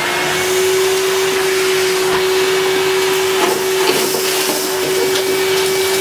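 Numatic Hetty HET200 bagged cylinder vacuum cleaner running on its 1200 W high setting: a steady motor whine over airflow hiss as the floor tool passes over carpet. A few faint clicks come from crumbs and paper scraps being sucked up.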